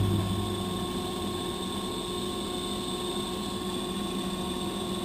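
Okamoto PSG-125 surface grinder running with its grinding wheel spun up, a steady, even hum with several constant tones. It runs really quiet.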